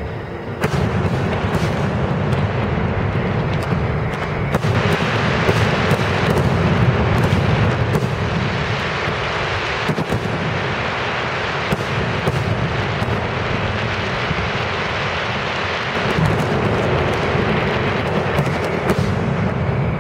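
Grucci aerial fireworks shells bursting in rapid succession: a dense barrage whose booms run together into a continuous rumble, with sharp reports throughout. It starts about a second in and swells louder around the middle.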